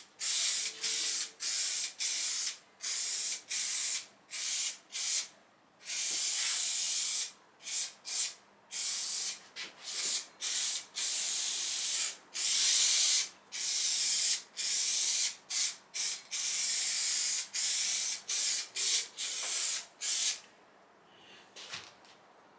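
Aerosol can of spray adhesive hissing in many short bursts of a second or less, separated by brief pauses, as a coat of glue is sprayed on. The spraying stops a couple of seconds before the end.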